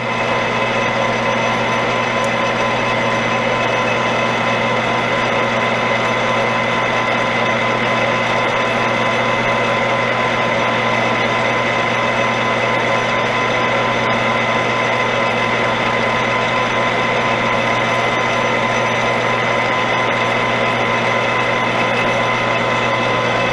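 Metal lathe running steadily through a turning pass, the spindle drive giving a constant hum with a high gear whine over it, dying away at the very end as the machine is stopped.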